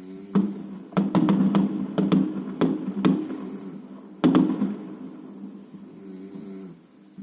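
Fireworks salute going off: a quick series of sharp bangs, thickest between about a third of a second and three seconds in, with one more big bang a little past four seconds. Music plays steadily underneath.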